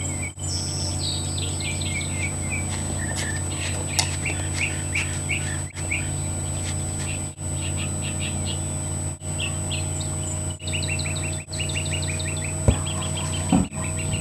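Small birds chirping and tweeting repeatedly over a steady low hum, with two short low thumps near the end.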